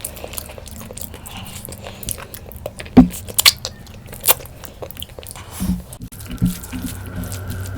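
Close-miked eating: chewing with a few sharp crunching bites, the loudest about three seconds in.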